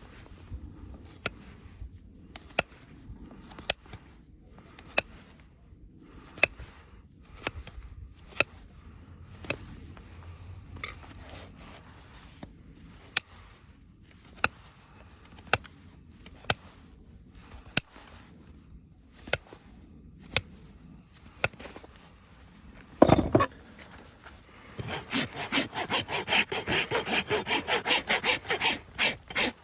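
Farrier's rasp filing a horse's hoof in quick back-and-forth strokes, starting a few seconds before the end after one loud scrape. Before that, single sharp clicks come about once a second.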